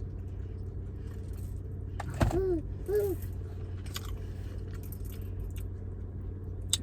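Car engine idling with a steady low hum, with small clicks from eating over it. About two seconds in comes a sharp click, then two short hummed vocal sounds like "mm-mm".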